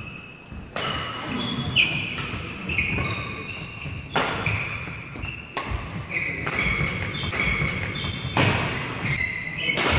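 Badminton rally in women's doubles: rackets hitting the shuttlecock sharply, about once a second, with badminton shoes squeaking on the court mat between the hits.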